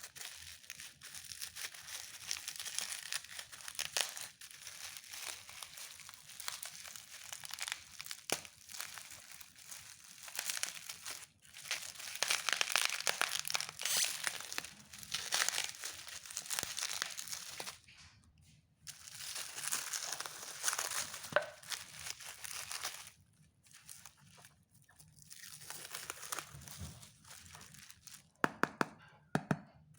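Plastic packaging crinkling and rustling on and off as a wrapped glass lunch box is unpacked, with a few sharp clicks.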